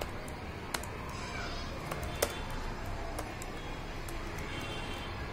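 Laptop keyboard keys clicking now and then as assembly code is typed, a few sharp clicks with the loudest about two seconds in, over a steady low background noise.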